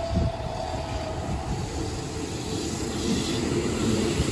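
Keihan 7200 series electric train running past close by, its wheels rumbling on the rails and growing louder in the second half as it draws alongside. A steady whine from the train fades out in the first second or two.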